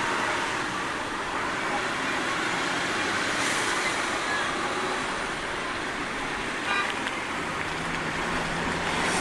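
Busy city street ambience: a steady wash of road traffic with people's voices mixed in. A low hum sets in about three-quarters of the way through.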